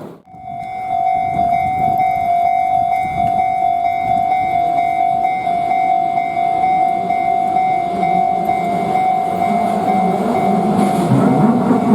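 Japanese level crossing warning bell ringing in a steady high tone while a Shin-Keisei electric train rumbles past over the crossing. The bell stops near the end, and the train noise grows louder.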